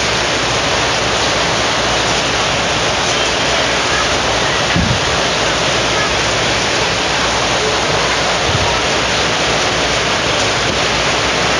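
Water at a rolling boil in a pan of grated green papaya: a steady, loud bubbling hiss.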